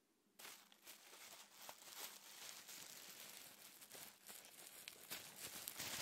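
Plastic bubble wrap crinkling as it is handled and squeezed, with many small sharp pops of bubbles bursting; it starts about half a second in and the pops grow louder near the end.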